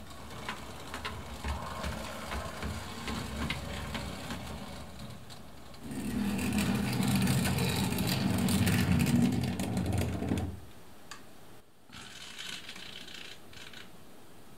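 Hornby Dublo model trains running on track: a steady whirring and clatter of small motors and wheels, which grows loud from about six to ten seconds as a diesel locomotive and its train pass close by, then falls away to a faint running sound.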